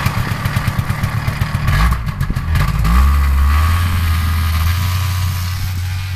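Yamaha Inviter 300 snowmobile engine running, with a fast, even firing beat. About three seconds in the pitch rises briefly, then the engine settles into a steadier low drone.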